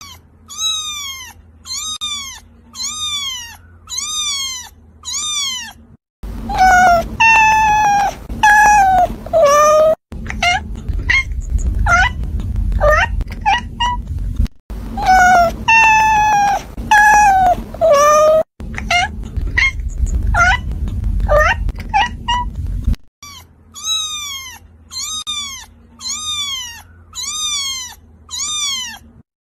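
Cats meowing in a string of recorded clips. First comes a run of short, high meows falling in pitch, about one a second. Then come longer drawn-out meows and quick short calls, and the same sequences repeat.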